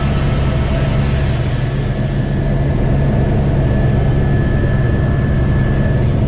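Helicopter in flight heard from inside the cabin: a loud, steady drone of engine and rotor, with a faint high whine above it.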